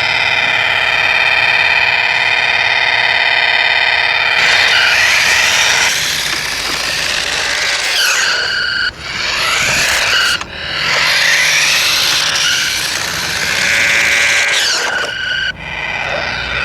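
RadioShack Sound Bat 2 toy playing its electronic sound effects through its small speaker. It opens with a steady, warbling electronic buzz, then about four seconds in switches to harsh, noisy effects with sweeping pitches that cut out briefly twice.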